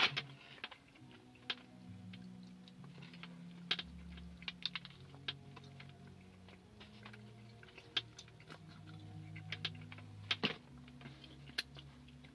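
Scattered small clicks and crinkles from hands pulling apart fried chicken wings and handling paper, with a few light eating sounds. Faint music of low held notes plays underneath.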